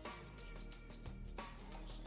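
Quiet background music.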